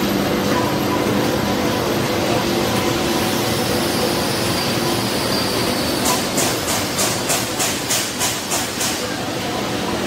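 Stainless steel coating pan machine running with its blower fan on, a steady mechanical hum. About six seconds in comes a quick run of about ten sharp ticks, roughly three a second, lasting about three seconds.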